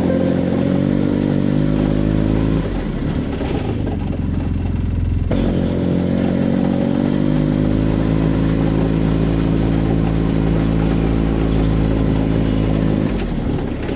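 Arctic Cat Wildcat side-by-side engine running at a fairly steady speed, with a short dip in the engine note about 3 seconds in and another near the end.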